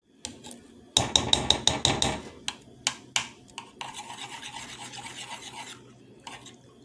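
A metal spoon scraping and knocking against a frying pan. The strokes are quick and loud for about a second, then turn to lighter stirring through the liquid in the pan, which stops near the end.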